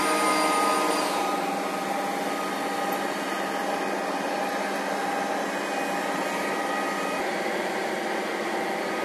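Steady drone of shipboard machinery: a constant noise carrying several held hum tones, slightly louder in the first second.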